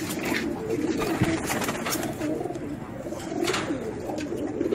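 Several Teddy pigeons cooing continuously, their low, wavering coos overlapping one another.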